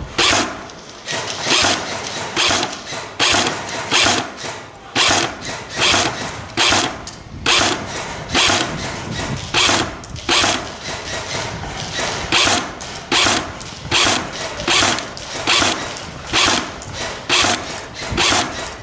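Footsteps crunching through dry undergrowth, about two steps a second, steady and walking-paced.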